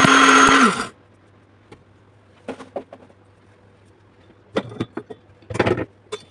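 Small electric grinder grinding dried crayfish, its motor running with a steady whine and stopping just under a second in. Then a few light clicks and knocks as the grinder is handled.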